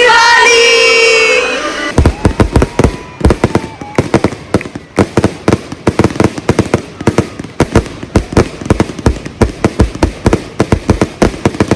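Fireworks going off in a rapid, irregular barrage of sharp bangs, several a second, starting about two seconds in, with a faint whistle that rises and then holds.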